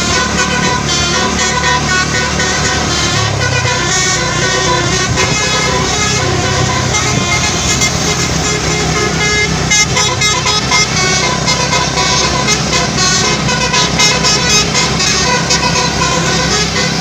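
Basuri telolet bus horn, a multi-trumpet air horn, playing a melody of changing notes without a break.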